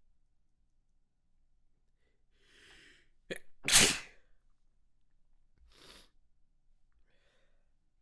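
A person sneezing: a breathy intake, a short sharp catch, then one loud sneeze a little under four seconds in, followed by a couple of quieter breaths, part of a sneeze fit.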